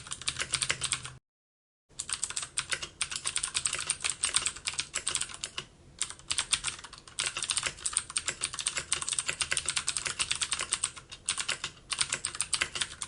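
Rapid, continuous typing on a computer keyboard, a dense stream of keystroke clicks, broken by a brief dead-silent gap about a second in and short pauses midway and near the end.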